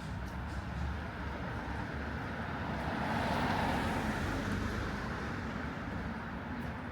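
A road vehicle passing by, its noise swelling to a peak about halfway through and then fading, over a low steady street rumble.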